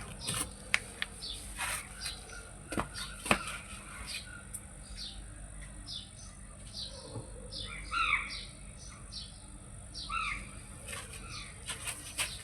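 Birds chirping a few times, short falling calls, among scattered light clicks and knocks. No motor is running.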